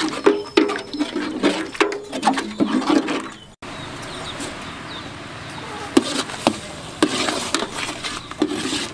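Metal ladle stirring in a large aluminium cooking pot, scraping and knocking against its sides with short ringing clanks. The sound cuts out abruptly about three and a half seconds in, then goes on as a steady hiss with scattered knocks.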